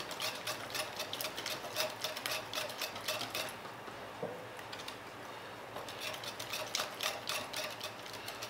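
Wire whisk beating thin cassava cake batter in a glass bowl, its wires ticking rapidly against the glass several times a second. The whisking eases off for about two seconds in the middle, then picks up again.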